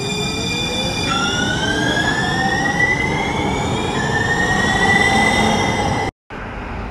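Electric light-rail trolley train pulling past the platform. Its traction motors whine, rising in pitch in steps as it speeds up, over the rumble of the wheels on the rails. The sound cuts off abruptly about six seconds in.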